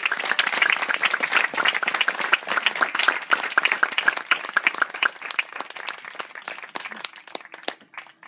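A crowd applauding: dense clapping that thins out over the last few seconds and dies away near the end.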